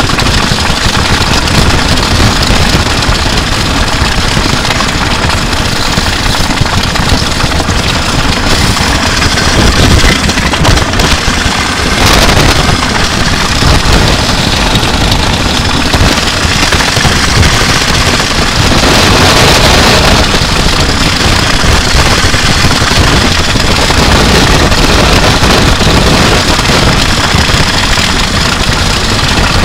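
An electric guitar, recorded straight through its line output, and a drum kit, picked up by an overhead microphone, being dragged over wet asphalt: a loud, continuous grinding noise of scraping and rattling that never lets up. It grows harsher for a few seconds about ten seconds in and again about nineteen seconds in.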